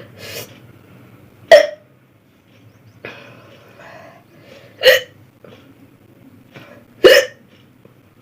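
A person hiccuping: three sharp, loud hiccups about one and a half, five and seven seconds in, with fainter breathing sounds between.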